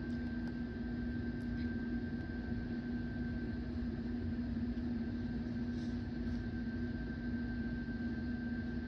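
A steady mechanical hum with a low rumble, holding one unchanging tone, with a few faint ticks over it.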